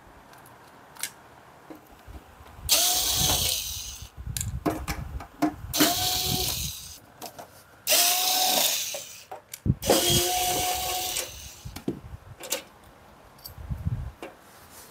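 Mini electric screwdriver running in four short bursts, each a steady whine lasting a second or so, backing screws out of an LED ceiling panel's metal housing. Light clicks and taps come between the bursts.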